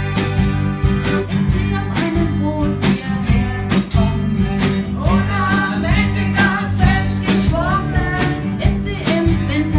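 Band music with a steady beat, bass and guitar, with a sung or played melody line coming in about halfway through.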